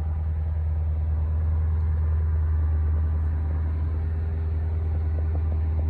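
Lexus RC engine idling steadily, heard from outside the car, with a deep, even hum. The engine is still cold, a few tens of seconds after starting in freezing air.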